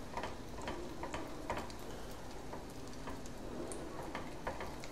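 Oil sizzling in a pan as a paratha roll fries, with hot oil spooned over it by a spatula; light irregular ticks and pops over a steady hiss.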